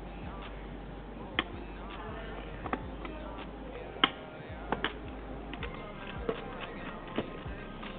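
Seven or so short, sharp clicks and taps, scattered irregularly, the loudest about four seconds in, over faint background music.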